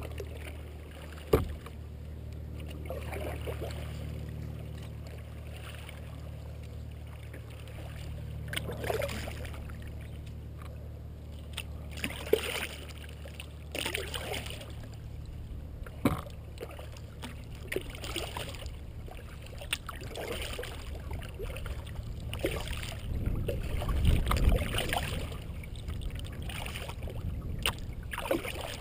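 Kayak paddling: the paddle blades dipping into and lifting out of calm water, with splashes and drips every second or two over a low steady rumble. A sharp knock comes about a second in.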